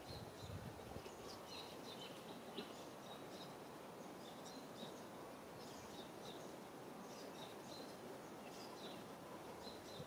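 Faint outdoor ambience: a steady low background hiss with scattered short, high chirps of small birds.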